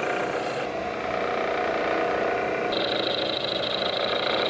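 Vertical milling machine with an end mill cutting metal: steady spindle and cutting noise. About two and a half seconds in it changes to a second cut that carries a steady high whine.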